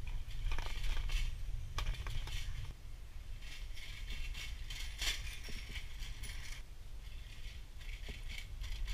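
Bicycle rattling and clicking as it rolls over a bumpy concrete lane, many irregular sharp clicks over a steady low rumble.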